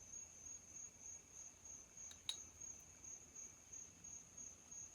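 Faint, steady high-pitched cricket chirping, pulsing several times a second, over near silence, with one sharp click a little over two seconds in.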